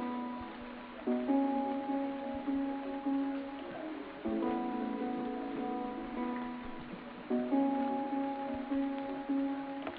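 Background music: a gentle instrumental track of plucked, guitar-like chords, with a new phrase about every three seconds.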